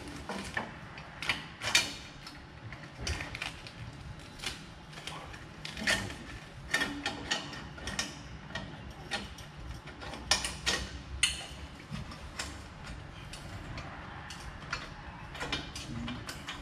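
Irregular light clicks, clinks and knocks of metal parts being handled and worked into place while exhaust pipes and clamps are fitted on a car.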